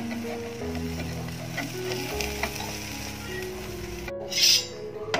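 Omelette frying in a nonstick pan with a steady low sizzle. A brief, louder burst of sizzling hiss comes about four seconds in.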